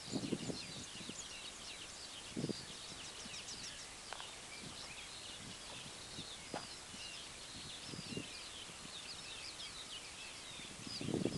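Many small birds singing and chirping at once, a continuous chorus of short high notes and trills. A few dull low thumps come near the start, about two and a half seconds in, and again near the end.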